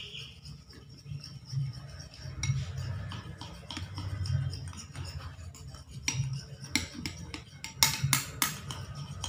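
Metal tablespoon stirring glue slime in a ceramic bowl, scraping and knocking softly against the bowl with scattered sharper clinks, most of them near the end. The glue, freshly mixed with eye drops, is being stirred until it starts to clump.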